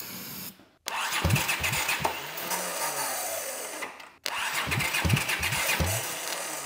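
Honda CX500 V-twin turned over on its electric starter in two cranking bursts, the first about three seconds long, then a brief stop and a second burst, with uneven thudding compression strokes. The starter had been locked up and has run hot from long cranking, and the engine was seized from rust inside.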